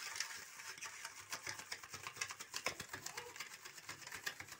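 Spoon beating thick instant-coffee paste round a steel plate, a fast, even run of light clicks and scrapes against the metal, as the coffee is hand-whipped to make it froth.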